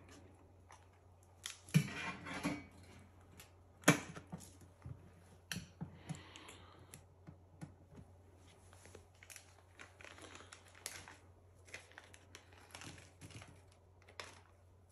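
Hands handling a stainless-steel oven door and its ceramic-fibre insulation panel: scattered light knocks, clicks and scraping, with two sharper knocks about two and four seconds in. Near the end comes the crinkle of a small plastic bag of fittings.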